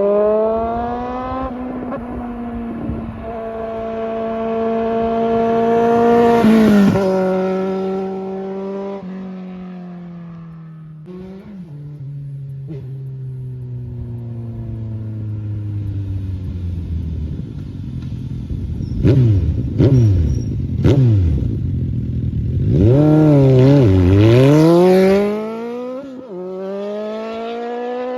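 Suzuki Bandit 1250's inline-four engine under hard throttle, its pitch climbing and dropping back at several gear changes in the first half, then falling away as it slows. Near the end it revs up and down sharply several times.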